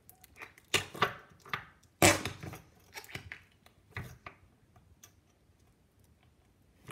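Soft slime being squished and pushed by hand into a small container: a run of sticky clicks and squelches, the loudest about two seconds in, thinning out over the last couple of seconds. The farting noise it usually makes going into the container doesn't come.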